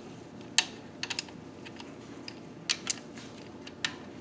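A few scattered sharp clicks and ticks of a hand ratchet and socket working the cam tower cap bolts on a KA24DE engine, with no steady ratcheting run.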